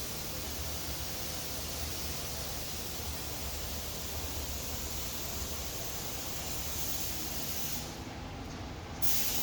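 Steady background hiss with a low hum underneath and no distinct events. The hiss briefly thins out near the end.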